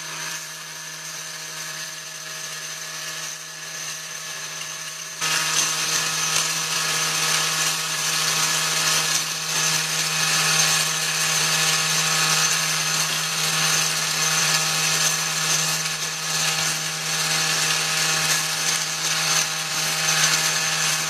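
Factory machinery running with a steady mechanical whine and hum. About five seconds in it jumps suddenly louder and hissier and stays that way.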